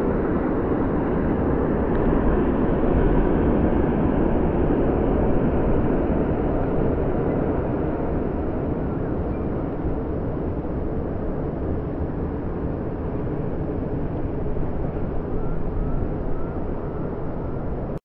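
Boeing 777's GE90 jet engines rumbling as the airliner rolls out along the runway after landing, with strong wind buffeting the microphone. The noise eases off gradually as the aircraft slows.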